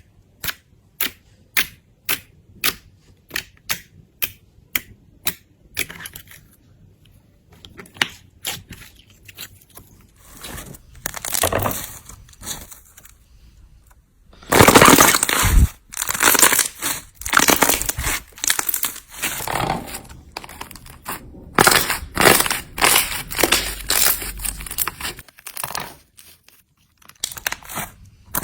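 Slime being pressed and squeezed by hand: first a run of sharp pops, about two a second, then dense crackling and crunching that grows loud about halfway through and comes in long runs.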